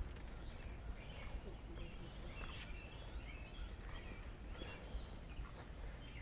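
Outdoor ambience: scattered faint bird chirps over a low steady rumble.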